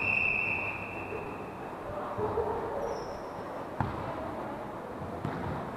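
A referee's whistle blows once, a steady high note lasting about a second and a half. Then, about four seconds in, a volleyball is struck with one sharp smack, with a few lighter knocks near the end.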